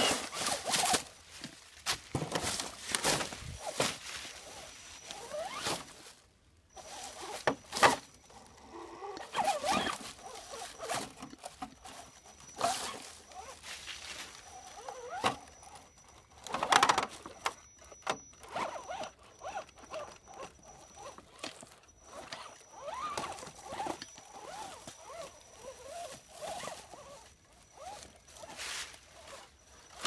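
Axial AX10 Deadbolt RC rock crawler picking its way over rocks through dry fallen leaves: irregular crackling and rustling of leaves under the tyres, with the small electric motor and gears whining in short, uneven bursts as the throttle comes and goes.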